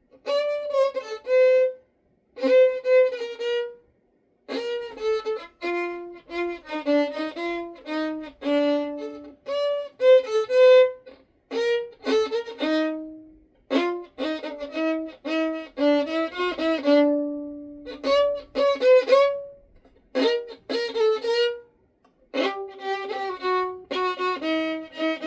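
Solo violin playing short melodic phrases with brief pauses between them, some notes sounded two at a time.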